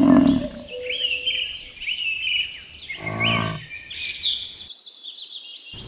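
Bison grunting: one low call about three seconds in, with the tail of another at the very start. Small birds chirp repeatedly in the background.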